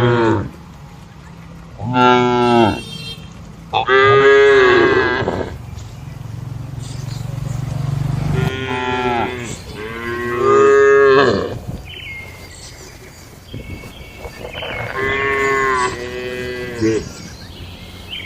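Cows mooing repeatedly: about five long, drawn-out moos of one to two seconds each, with short pauses between them.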